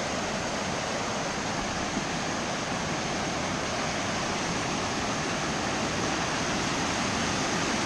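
Big Bradley Falls, a waterfall's steady, even rush of falling water with no change in level.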